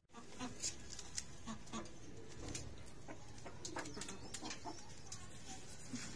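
Chickens feeding, giving short, scattered low clucks, with small sharp clicks in between.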